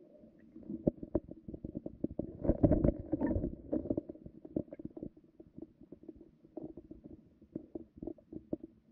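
Muffled underwater sound picked up by a camera below the ice: scattered soft clicks and knocks, with a louder low rumble from about two and a half to three and a half seconds in.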